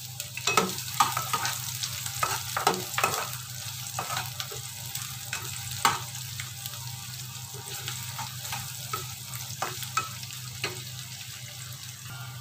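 Sliced shallots and garlic sizzling in hot oil in a wok, stirred with a metal spatula that scrapes and knocks against the pan. The knocks come thick in the first few seconds and grow sparser later, over the steady hiss of the frying.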